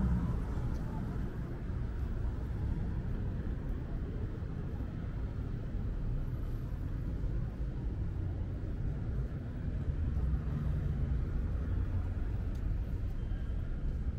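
City street traffic noise: a steady low hum of vehicles, with one engine passing louder about ten seconds in.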